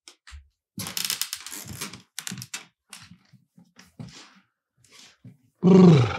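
A quick run of clicking and clattering, like typing or handling small objects, then scattered soft ticks. Near the end comes a loud, low groan that falls in pitch.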